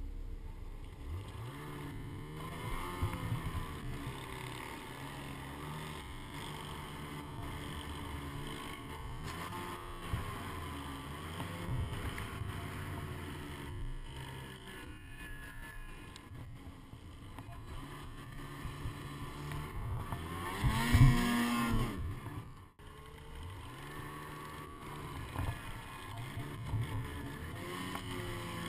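Ski-Doo mountain snowmobile's two-stroke engine revving up and down as the sled works through deep powder, its pitch repeatedly rising and falling. The loudest, highest rev comes about two-thirds of the way in, then drops away sharply for a moment.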